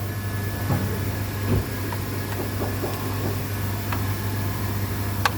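Steady low mechanical hum, with a few short clicks and knocks of tools or parts handled over it: about four, the last near the end the sharpest.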